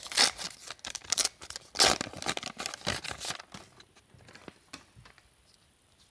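Trading-card pack wrapper from a 1990-91 Upper Deck hockey box being torn open and crinkled by hand, in a run of rustling tears over about the first three and a half seconds. After that come only a few faint ticks of card handling.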